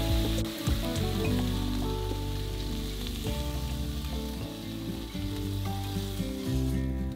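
Pork neck steaks sizzling in hot oil in a frying pan as they are lifted out with tongs; the sizzling cuts off near the end. Background music plays underneath.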